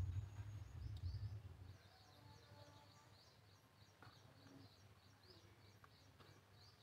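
Faint background birdsong: short high chirps repeated a few times a second, over a low rumble that fades out in the first couple of seconds.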